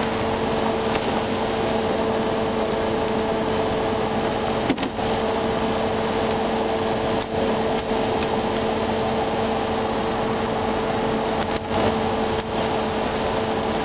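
Steady machine hum with a constant pitched tone, like an engine or air-conditioning unit running, with a few faint clicks.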